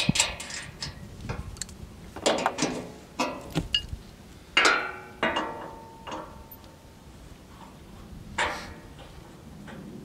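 Irregular metallic clanks and clicks from the steel blade cover and a wrench being worked on a band sawmill head. The loudest clank, about halfway through, rings briefly.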